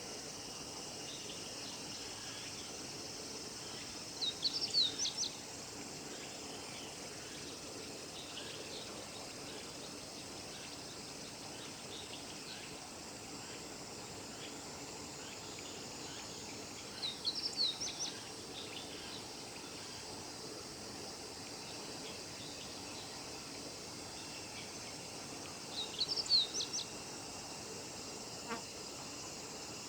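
Male meadow bunting singing: three short, quick song phrases of high notes, roughly ten seconds apart, over a steady background of insects.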